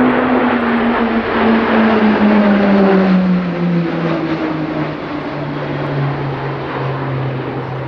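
A formation of six Pilatus PC-21 single-engine turboprop trainers flying past, their propeller drone sliding steadily down in pitch as they go by and growing quieter after about five seconds.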